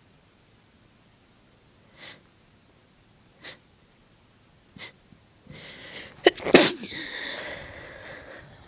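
A person sneezing: three short, sharp breaths a second or so apart, then a breath building up to a loud sneeze about six and a half seconds in, which trails off in a breathy exhale over about two seconds.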